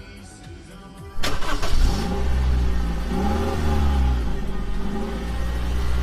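Car engine starting about a second in, then running with the revs rising and falling.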